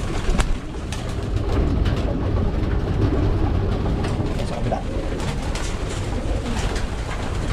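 A flock of domestic pigeons feeding at a wooden trough: cooing, with many short wing flaps and sharp pecks scattered throughout, over a steady low rumble.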